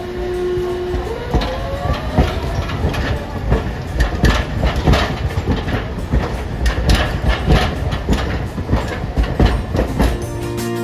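Hiroshima Electric Railway streetcars moving at the station terminus: a rising motor whine about a second in, then a tram's wheels clacking over the rail joints and points in an uneven string of sharp knocks about every half second as it rolls past close by.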